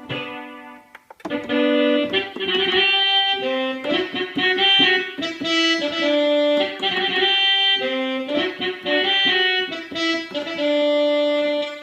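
Korg Krome synthesizer keyboard playing a melodic phrase on one of its Korg M1 sounds: a single-line melody over held notes, starting after a short pause about a second in.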